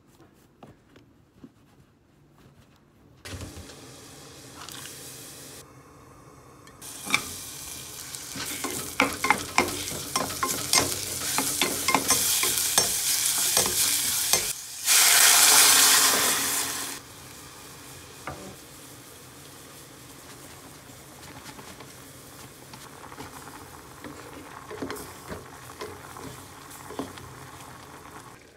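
Julienned vegetable strips sizzling in a pot while a wooden spatula stirs them, clicking and scraping against the pot. A loud burst of hissing comes about halfway through and lasts a couple of seconds. After that the pot settles to a quieter bubbling simmer with occasional stirring taps. The first few seconds are near-quiet room tone.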